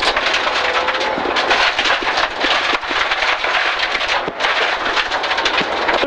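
Subaru Impreza rally car at speed on gravel, heard from inside the cabin: a dense rush of tyre and road noise with loose stones constantly rattling and pinging against the underside.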